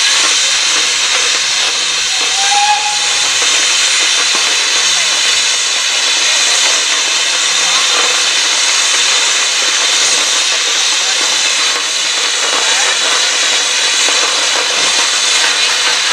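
Steady, loud hiss of steam from an Aveling & Porter steam roller creeping forward close by. About two and a half seconds in there is a short squeak.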